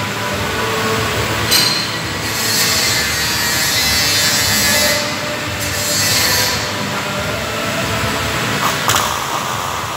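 Loud, steady noise of metalworking equipment that swells and eases every second or two, with a brief high tone about nine seconds in.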